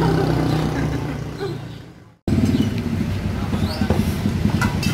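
Street traffic with a motor vehicle engine running steadily. The sound fades and drops out for a moment about two seconds in, then the steady engine sound comes back.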